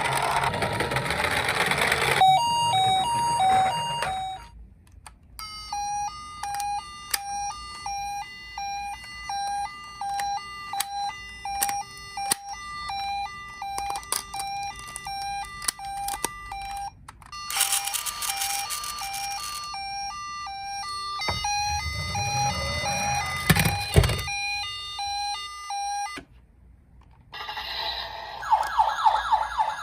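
Toy emergency vehicles sounding their electronic sirens in turn. First comes a two-tone ambulance-style alternation, then a long run of quick stepped beeping tones. Near the end a fast repeating wail starts, and a short rush of noise and a low rumble come in the middle.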